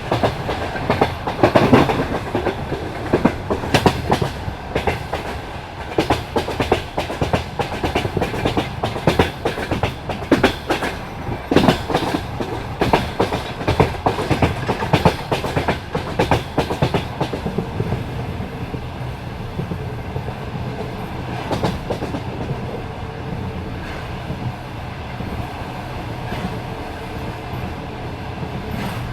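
Passenger train wheels clattering over rail joints at speed, a dense run of clicks and knocks over a steady rumble. After about seventeen seconds the knocks thin out, leaving a smoother rumble.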